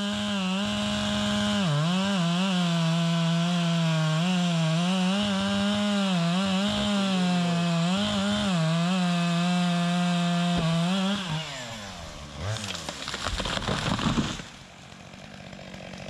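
Chainsaw running at high revs while cutting a pine log, its pitch dipping each time it takes load. About eleven seconds in the revs fall away, followed by about two seconds of rough noise.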